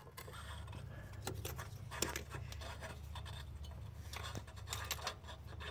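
Faint, irregular metallic clicks and scrapes of a 7/8 wrench working the oxygen sensor loose from the exhaust, over a low steady hum.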